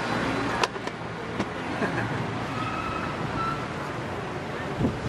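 Steady street traffic noise, with a few sharp clicks in the first second and a half.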